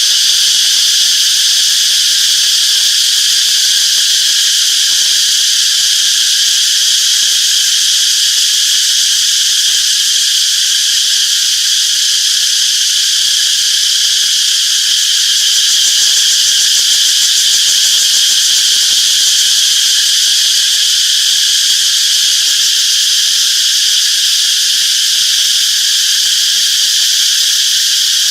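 Cicadas singing in a dense, steady chorus: a continuous high-pitched shrill buzz that neither pauses nor changes in level.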